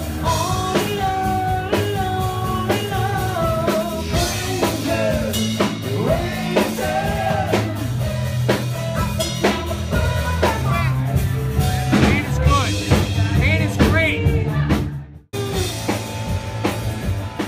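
Live rock band playing: a lead singer over electric guitar and a drum kit. About fifteen seconds in the sound breaks off for an instant and picks up again a little quieter.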